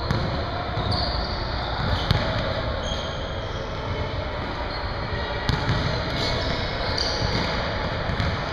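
Basketball being dribbled on a hardwood gym floor, each bounce echoing in the large hall, with bounces every second or so.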